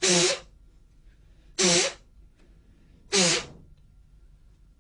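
A man's sharp, forceful breaths out, three of them about a second and a half apart, each with a short grunt: the combat breathing of Emei Paida Gong, one breath out with each tensing of the chest and back.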